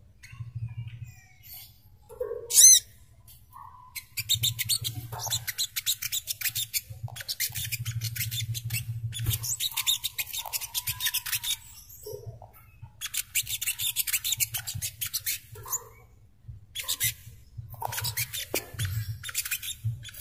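Recorded song of a sogok ontong (burung kelapa, the brown-throated sunbird). It gives rapid, high, chattering twitters in four bursts of a few seconds each, with a short whistled note before the first, over a low hum.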